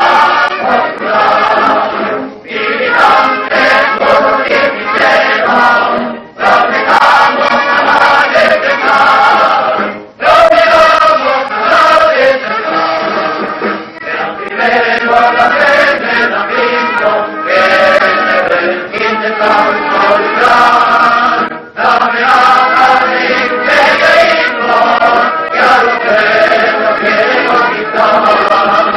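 A choir singing, phrase after phrase, with brief breaks between the phrases.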